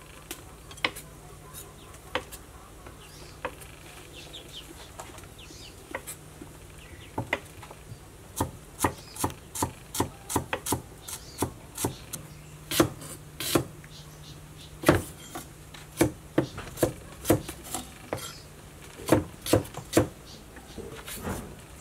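Kitchen knife blades knocking on a wooden chopping block as ingredients are cut. There are a few scattered strokes at first, then quicker, irregular strokes from about eight seconds in, two to three a second.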